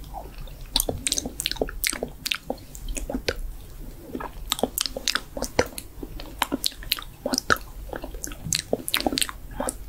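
Close-miked wet mouth sounds: irregular smacks and clicks of lips and tongue around a spoon, mimicking eating.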